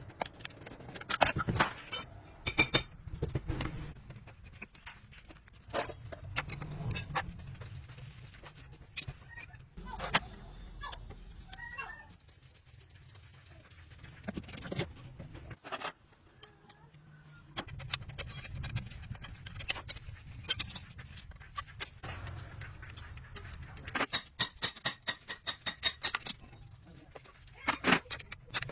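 Irregular clinks and knocks of metal tools and parts during work on a truck's rear axle bearing. A flurry of ringing metallic clinks comes near the end, over a steady low hum.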